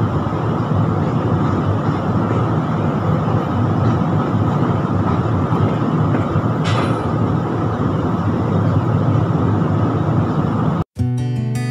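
Steady wind rushing over the microphone, with one short hiss about seven seconds in. It cuts off abruptly near the end and acoustic guitar music begins.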